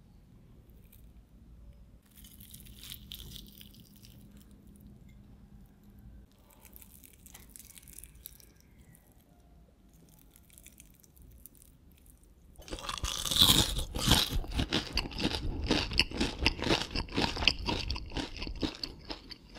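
Faint crackling of a crisp breadcrumb-coated fried chicken wing being handled, then, about two-thirds of the way in, loud rapid crunching as the wing is bitten and chewed, going on until just before the end.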